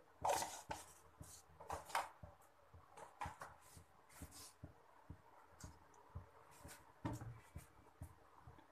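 Cumin seeds crackling in hot oil in a kadhai as they temper: faint, irregular small pops and clicks, with a louder one just after the start.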